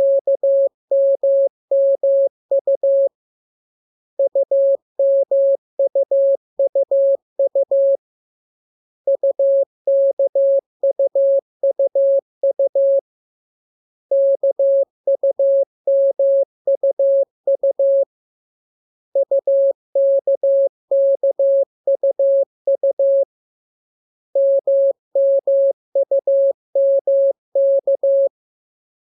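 Morse code sent as a single mid-pitched beeping tone, dots and dashes keyed in runs of about four seconds, with a pause of about a second between each run. These are practice groups of the lesson's letters for copying by ear.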